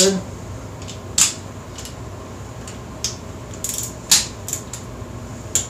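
Sharp metal clicks and clinks of a click-type torque wrench and socket on the cylinder head bolts of a Suzuki GSX-R motorcycle engine. There are three louder clicks, at about one second, about four seconds and near the end. The wrench clicking at its 42 ft-lb setting marks a head bolt that is already at torque.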